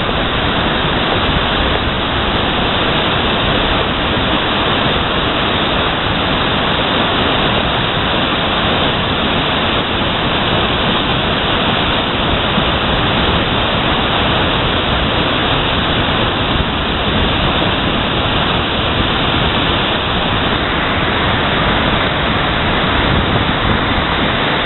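Steady rushing of a glacial meltwater river running high after days of rain as it pours out of an ice cave and over boulders.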